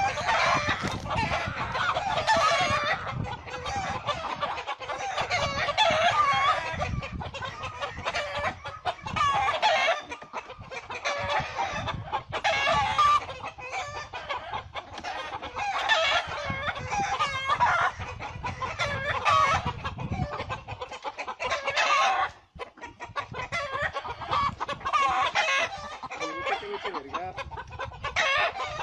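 A hen squawking and cackling over and over in loud agitated calls as she attacks a downed bird of prey, with a short break about three-quarters of the way in.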